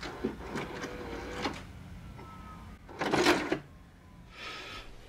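Edited sound effects for a channel intro: several sharp mechanical clicks and clunks, then a louder burst of noise about three seconds in and a fainter one near the end.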